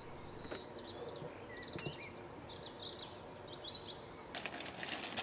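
Faint bird chirps and twittering trills in the background, with light clicks from small metal engine parts being handled. A denser patch of clicking and rustling starts near the end.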